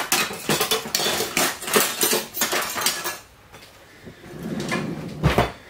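Metal kitchen utensils clinking and clattering as a ladle is fetched, dense for the first three seconds or so, then quieter, with a dull thump near the end.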